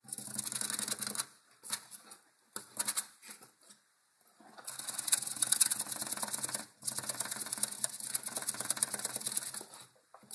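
Dense, rapid crackling clatter in harsh bursts that cut in and out abruptly, short at first and then in two long stretches.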